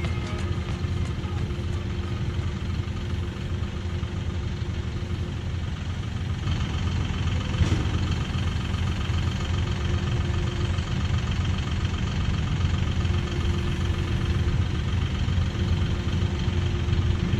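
Engine of heavy equipment running steadily at a low rumble, while the equipment pushes a pipe fence entrance upright. The sound gets slightly busier about six and a half seconds in.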